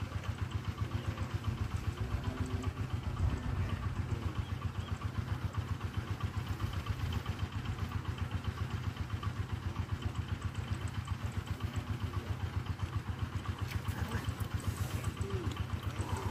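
An engine running steadily at an even speed, with a low, rapid, regular pulse.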